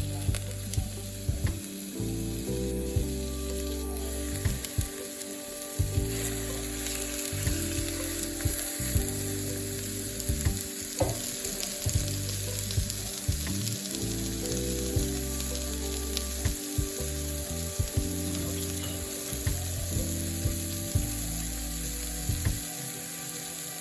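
Food sizzling as it fries in a pan, a steady hiss, under background music with low held notes and a regular beat.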